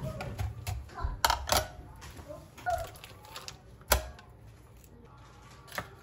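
A mixing bowl set down on a digital kitchen scale, then a block of cream cheese unwrapped from its foil and dropped into the bowl. Several sharp knocks and clicks, the loudest about four seconds in.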